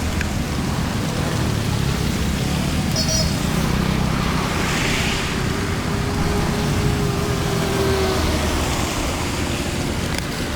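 Steady rushing of floodwater draining away.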